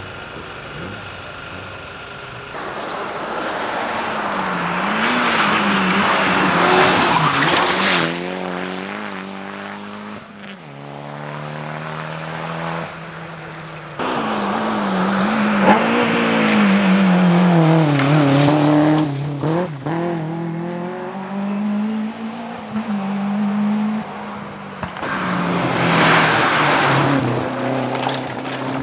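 Rally cars racing past one after another, three going by roughly ten seconds apart, their engines revving up and down through the gears as each one comes and goes.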